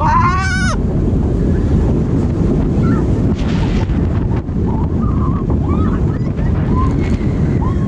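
Roller coaster ride heard on an action camera: heavy wind rushing over the microphone, with a rider's wavering scream in the first second and faint screams further off.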